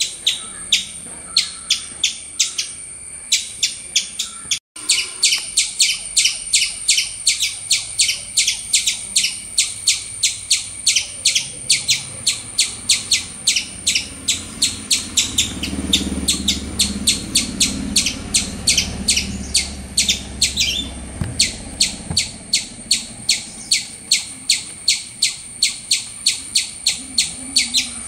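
A high, sharp chirping call repeated steadily, about four chirps a second, with a brief break about five seconds in. A low rumble sits under it for a few seconds midway.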